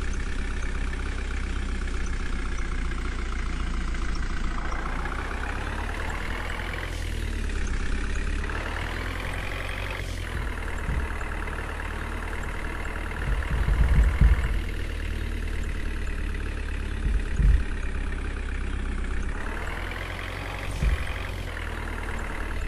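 JCB 3DX backhoe loader's diesel engine running, revving up and easing back several times as the machine works. Several low thuds come through in the second half, the loudest about two-thirds of the way in.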